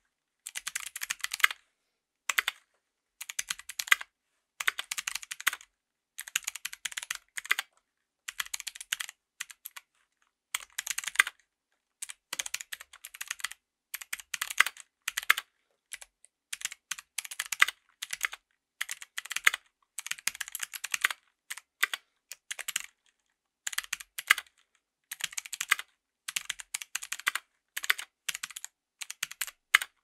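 Typing on a 60% mechanical keyboard fitted with Kailh Speed Gold clicky switches on a brass plate in an aluminum case, with GMK keycaps: sharp key clicks in quick runs broken by short pauses.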